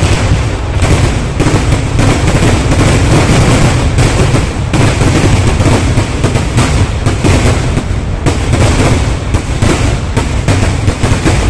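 Fireworks barrage: rapid, overlapping bangs and booms from bursting aerial shells and crackers, several a second, with no pause.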